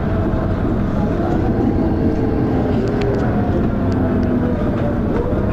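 Dennis Arrow bus's engine and ZF automatic gearbox running under way, heard from inside the bus. A loud, steady low rumble carries whining tones that waver in pitch, with a few short rattling clicks about three seconds in.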